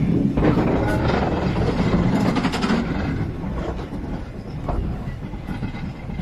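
Steam train rolling slowly along the track, heard from on board: a steady rumble with clanking and rattling from the wheels and running gear. It eases off a little in the second half.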